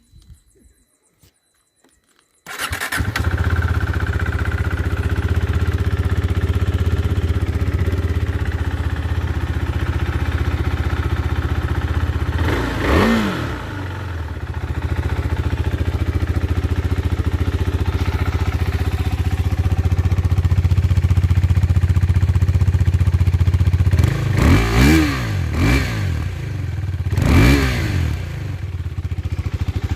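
Husqvarna Svartpilen 401's single-cylinder four-stroke engine on its stock exhaust, cold-started: it catches about two and a half seconds in and settles into a steady idle. There is one short throttle blip around the middle and three more quick blips near the end.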